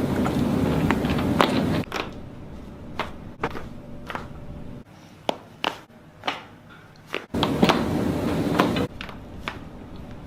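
Neck joints cracking in a series of sharp, separate pops, about a dozen spread unevenly through the stretch. Two longer stretches of denser noise come at the start and again about three-quarters of the way through.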